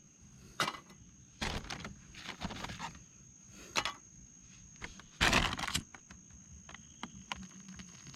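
Irregular rustling and crunching of dry leaves and twigs, the loudest a crunch about five seconds in, over a steady high insect drone.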